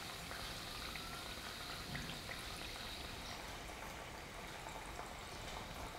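Hot oil in a kadhai sizzling steadily around a bajra-sesame tikki as it deep-fries, with a few faint pops.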